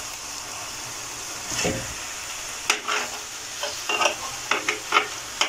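Marinated chicken pieces sizzling in a hinged double-sided frying pan over a low gas flame. A utensil clicks and scrapes against the pan several times in the second half as the pieces are turned.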